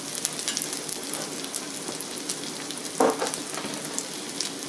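Sliced ginger sizzling in hot peanut oil in a wok on high heat: a steady hiss with many small crackles, briefly louder about three seconds in.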